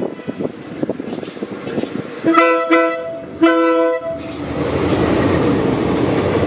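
A diesel locomotive horn sounds two short blasts and then a longer one, several notes at once. A loud, steady rushing noise follows.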